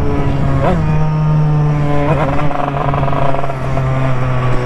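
Yamaha DT two-stroke dirt bike engine, fitted with a new cylinder and an AC Dev expansion-chamber exhaust, running at steady high revs under way. The note jumps up briefly and drops back twice, about a second in and again about two seconds in.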